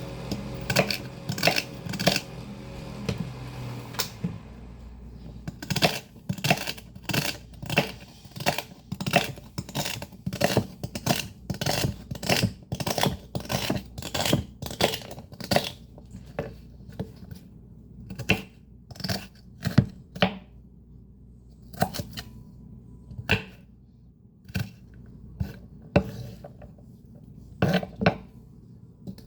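Greens being chopped: a long series of sharp chopping strokes, about two a second for a stretch, then slower and more irregular, over the faint steady hum of a fan.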